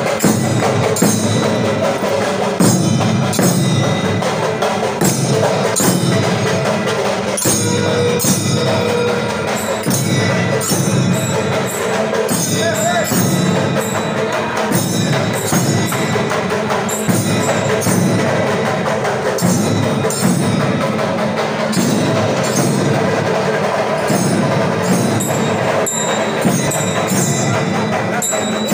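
Loud, continuous percussion-led music of drums with rapid, repeated strikes of metal percussion.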